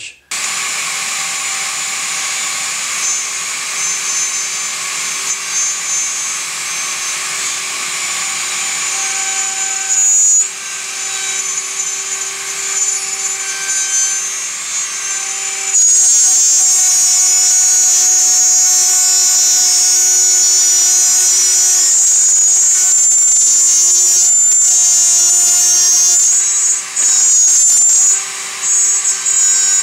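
Festool OF1010 plunge router running and cutting a quarter-inch groove into a white maple drawer side. A steady high-pitched whine that gets louder about halfway through, with a few short dips near the end.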